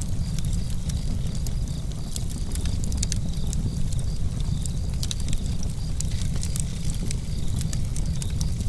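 Campfire crackling with scattered sharp pops over a steady low rumble of wind and flames, while crickets chirp in an even, pulsing rhythm.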